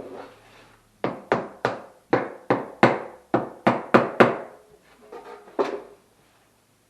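About ten sharp knocks in quick succession, roughly three a second, each with a short ringing tail, then one more knock about a second later.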